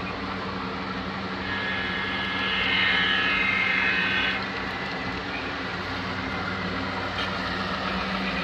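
Model RSD5 diesel locomotive running along the layout track with a steady low drone, joined from about a second and a half in to about four seconds by a louder high-pitched whine or squeal that shifts in pitch.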